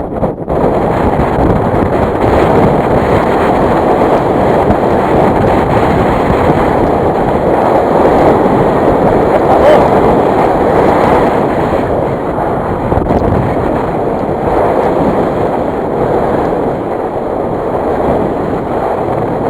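Wind on a mountain ridge buffeting the microphone: a loud, steady rush that starts suddenly.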